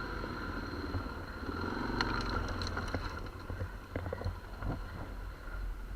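ATV engine idling with a steady low rumble, with a few scattered clicks and knocks about two seconds in and again near the end.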